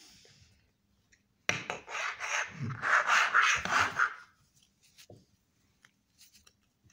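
Rubbing, rasping noise of fingers and skin moving against the phone close to its microphone while the hand strokes a cockatiel, starting about a second and a half in and lasting about two and a half seconds.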